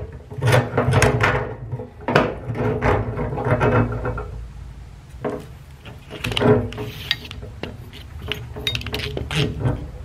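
Small metal parts clinking and knocking by hand: threaded studs being screwed into a steel fuel-sending-unit mounting plate, and the plate and gasket being handled on an aluminium fuel cell. The clicks and taps come irregularly, busiest in the first few seconds and again a little after halfway.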